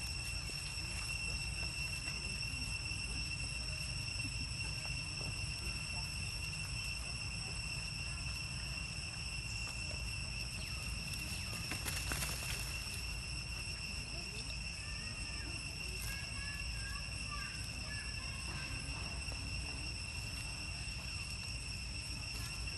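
A steady high-pitched insect drone of three tones stacked one above another, over a constant low rumble. A brief rustling burst comes about halfway through, and a few faint short chirps follow soon after.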